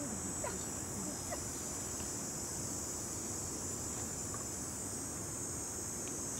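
Steady high-pitched chorus of night insects, a constant trilling drone. A few faint short chirps are heard in the first second and a half.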